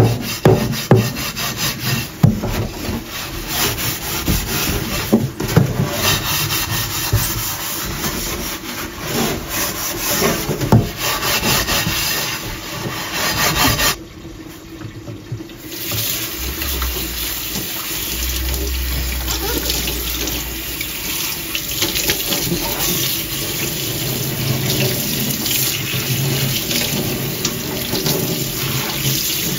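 Rubber-gloved hand scrubbing the paste-coated bottom of a dirty frying pan in a stainless steel sink, a rasping rub in repeated strokes. Near the end, tap water runs over the pan as it is rinsed.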